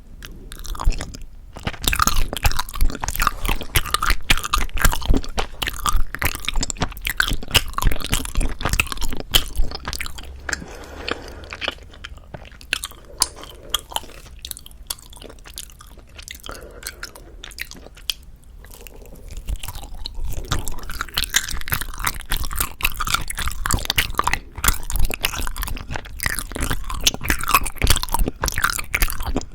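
Close-miked chewing of soft, sticky rice cake (tteok): wet, clicky mouth sounds in dense irregular bursts. The chewing eases off in the middle and grows busy again from about 20 seconds in.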